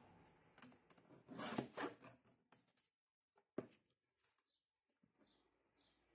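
Sliding paper trimmer cutting a strip of paper: a brief scraping swish of the blade running along its rail about a second and a half in, then a single sharp click a couple of seconds later, with light rustling of paper between.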